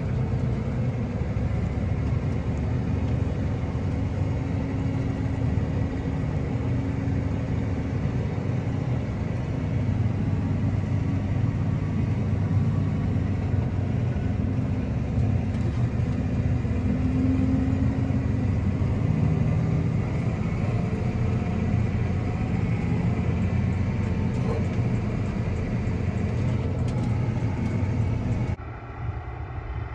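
Claas Axion 850 tractor's six-cylinder diesel engine running steadily while driving, heard from inside the cab. Near the end the sound drops suddenly and becomes quieter.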